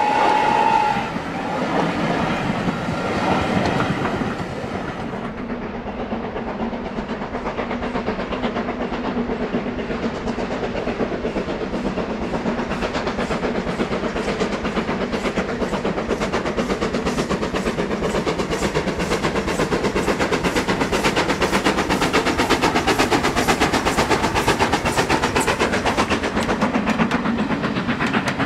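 Steam locomotive on a heritage line: a short whistle ends about a second in, then the engine works past with a rapid, even run of exhaust beats, growing louder and easing slightly near the end.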